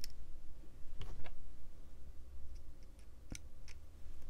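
A few small, irregular metal clicks and taps from handling a Demko AD20.5 folding knife while fitting its aluminum handle scale and body screws with a screwdriver.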